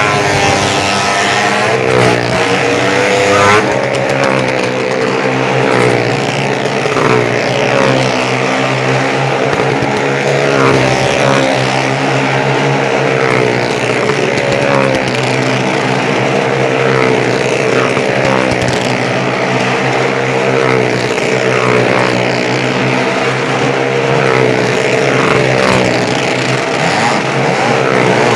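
Motorcycle engines running hard as the bikes circle the vertical wooden wall of a Wall of Death, the engine pitch rising and falling in waves every two seconds or so with each lap.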